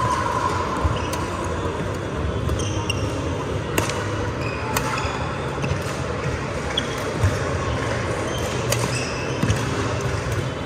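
Badminton rally on a wooden sports-hall court: sharp racket strikes on the shuttlecock at irregular intervals and short squeaks of shoes on the floor, over a steady murmur of spectators' voices in the hall.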